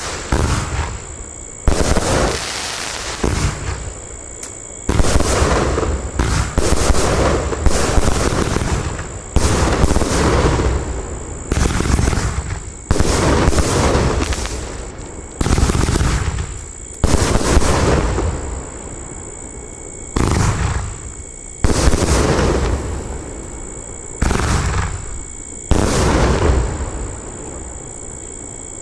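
F2 compound firework cake firing, a series of loud sharp bangs about one to two seconds apart, each one trailing off before the next.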